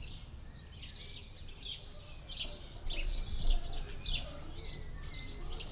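Small birds chirping: short, high calls repeating irregularly over a low rumble.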